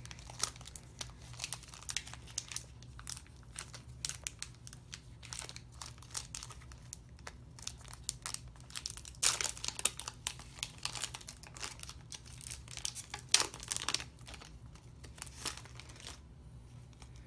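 Foil booster pack of Pokémon trading cards being torn open and crinkled by hand: a long string of sharp crackles, with louder ones about nine and thirteen seconds in.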